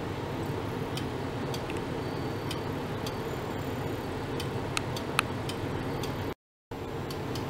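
Steady low hum and hiss from laboratory ultrasonic test equipment, with irregular sharp ticks and clicks, two of them louder a little after the middle. The sound cuts out completely for a moment near the end.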